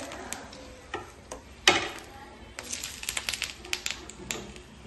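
Coconut oil crackling and popping under masala-coated pieces frying on a banana leaf over a gas burner: irregular sharp pops in quick flurries, with one louder crack about two seconds in.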